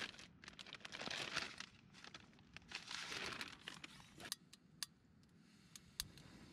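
Clear plastic bag crinkling and rustling as it is opened and handled, in several bursts over the first four seconds. Then a few sharp clicks as a gas canister stove is lit, followed by a faint steady hiss.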